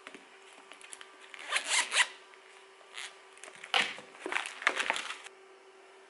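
Zipper on a zippered Bible cover being pulled open in several short zipping strokes, with a faint steady hum underneath.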